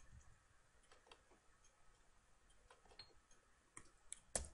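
Near silence with faint, scattered computer mouse and keyboard clicks, and one sharper click near the end.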